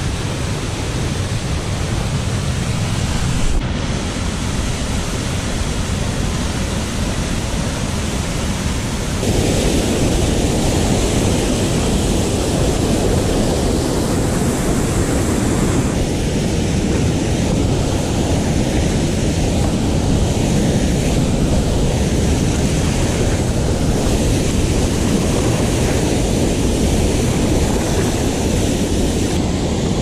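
Steady rushing roar of waterfalls pouring into a lake, heard close up, with wind on the microphone. The roar gets louder and fuller about nine seconds in and changes character again at about sixteen seconds.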